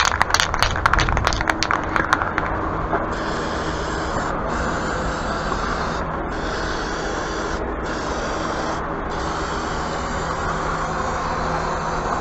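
Rapid rattling clicks, then spray paint hissing steadily from about two seconds in, stopping briefly about four times. A fan hums steadily underneath.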